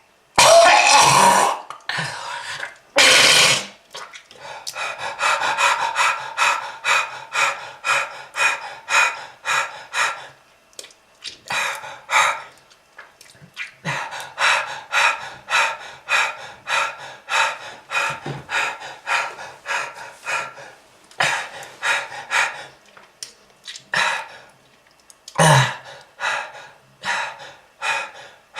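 A person in a heavy coughing fit: loud, harsh coughs at the start and about three seconds in, then long runs of short hacking coughs at about three or four a second, broken by brief pauses, with another loud cough near the end.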